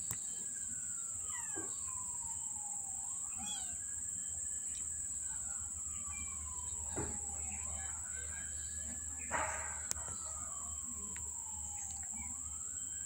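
Wailing siren, its pitch rising quickly and falling slowly about every three seconds, over a steady high-pitched insect drone. A few light clicks and a louder knock about nine seconds in.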